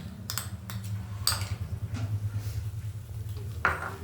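A metal utensil knocking and scraping against a kadai a few times, with a louder knock near the end, over a steady low hum.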